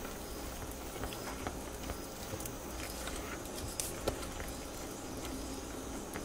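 Wire whisk stirring a thick flour batter in a glass bowl: a soft, steady squelching churn with a few faint clicks.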